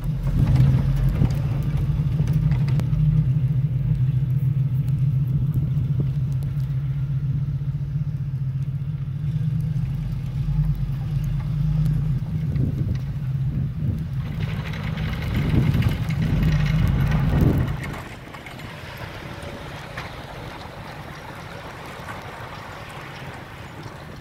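1975 Dodge W300's 440 V8 engine running with a steady low drone that swells up and down near the end, then drops away sharply about three-quarters of the way through, leaving a quieter even hiss.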